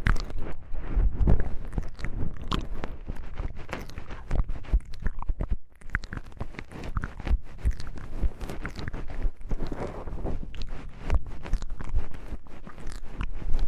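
Wooden knobs handled and rubbed right against the microphone: a dense, continuous crackling and clicking with soft low thumps, with a brief lull about five and a half seconds in.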